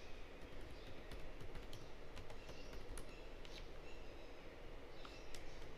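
Typing on a computer keyboard: a run of quick, irregular keystroke clicks, fairly faint, over a steady low background hum.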